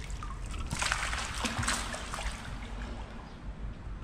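Shallow seawater trickling and splashing, busier for a stretch about a second in.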